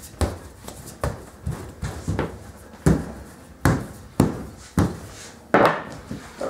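Wooden rolling pin rolling and knocking on a sheet of laminated croissant dough over a stainless steel bench: a string of dull thumps, roughly one every half second to second, the loudest near the end.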